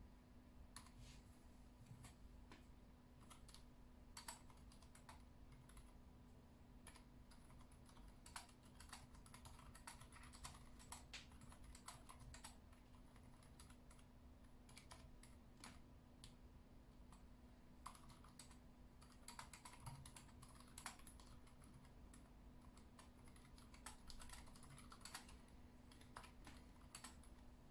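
Continuous irregular typing on a Yui40 mechanical keyboard fitted with unlubed Gateron Silent Brown switches and PBT keycaps. The keystrokes are soft and muted.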